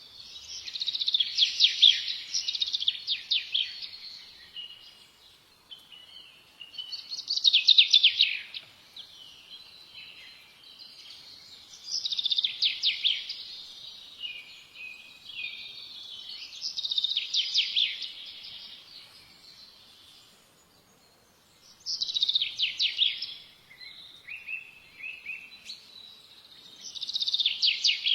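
A songbird singing, repeating a short phrase of rapid trilled notes about every five seconds, with softer twittering between phrases.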